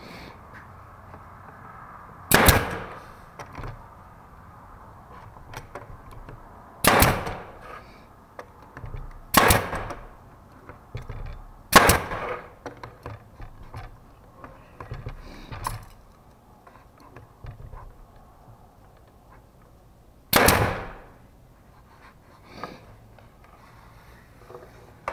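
Pneumatic brad nailer firing brads into wooden trim, with the air pressure at about 80 psi: five sharp shots a few seconds apart and a fainter one between them.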